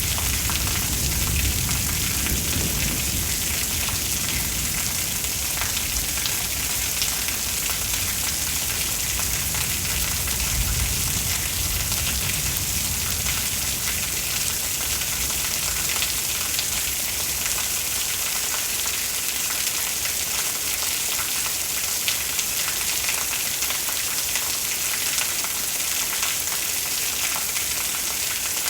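Steady heavy rain with a constant hiss. A low thunder rumble rolls through in the first few seconds and again around ten seconds in.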